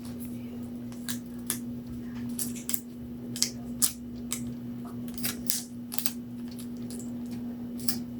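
Scattered small sharp clicks and crinkles from hands handling small cage decorations such as bows, over a steady low hum.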